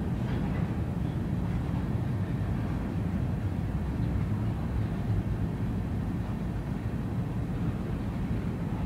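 Covered hopper cars of a freight train rolling past, a steady low rumble of steel wheels on the rails.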